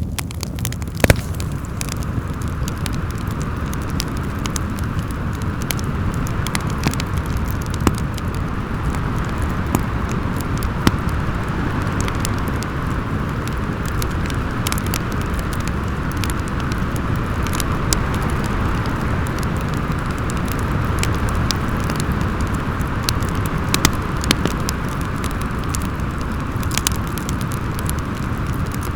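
Wood fire crackling in a fireplace, with scattered sharp pops over a steady rush of storm wind; the loudest pop comes about a second in.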